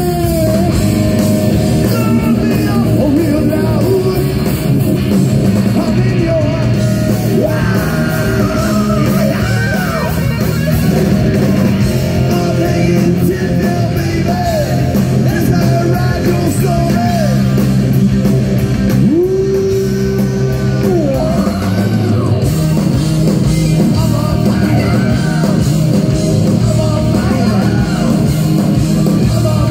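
Live hard rock band playing loud through a PA: electric guitar, bass and drums, with a male singer shouting and singing over them and holding one long note about two-thirds of the way through.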